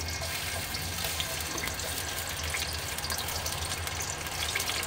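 Pieces of onion sizzling in hot olive oil in a steel pot: a steady hiss with scattered small crackles. A steady low hum runs underneath.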